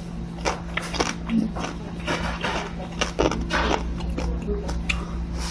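Close-miked eating sounds: chewing and biting, with many short clicks and ticks of spoon and chopsticks at the bowl, over background music.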